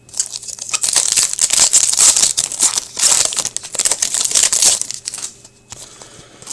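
Foil wrapper of an Upper Deck Series 2 hockey card pack being torn open and crinkled, in two stretches from about a second in until near the end.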